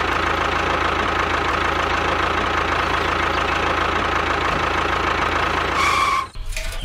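Tractor engine idling steadily with a knocking chug; it cuts off suddenly about six seconds in.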